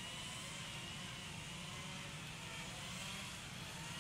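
An engine running steadily: a low rumble with a faint, slightly wavering high whine over it.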